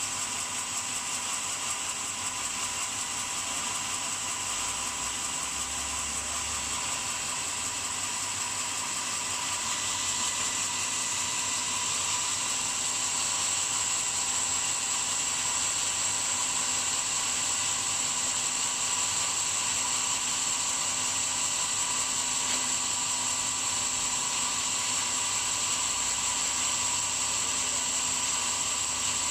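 Power saw fitted with a concrete-cutting blade, running continuously with a steady high whine, getting slightly louder about ten seconds in.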